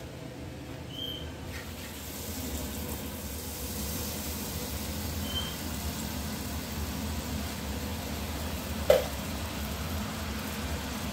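Butter foaming and sizzling in a frying pan on an induction hob, a little louder after about two seconds as lemon juice goes in. Two short high beeps from the hob's touch controls, about a second in and again about five seconds in.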